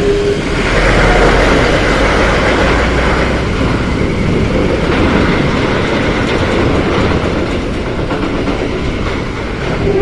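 Intercity coach bus driving past with its engine running: a loud, steady rumble, deepest in the first few seconds.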